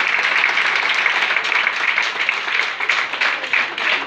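Audience applauding, with single claps standing out more clearly in the second half.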